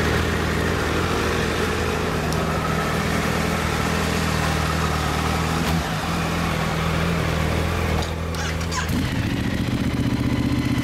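Motorcycle engine idling steadily, its note stepping up to a higher pitch near the end.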